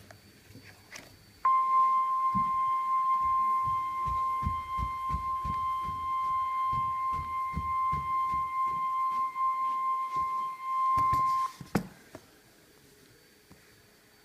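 NOAA Weather Radio warning alarm tone from a weather radio receiver: a single steady tone near 1 kHz that starts sharply a little over a second in, holds for about ten seconds and cuts off abruptly, the signal that a warning message follows. Irregular low thumps run beneath it.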